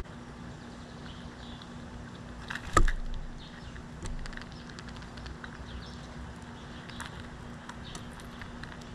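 Outdoor ambience at a backyard bird feeder: faint, short bird chirps and scattered light ticks over a steady low hum, with one sharp loud knock about three seconds in.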